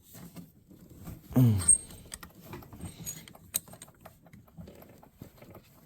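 Small metal parts being handled: scattered light clicks and short rattles, with a brief low grunt-like vocal sound about a second and a half in.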